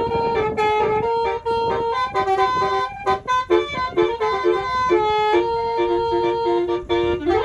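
Basuri musical bus horn playing a melody, stepping from note to note with a clean, bright horn tone. Near the end the pitch slides steeply upward.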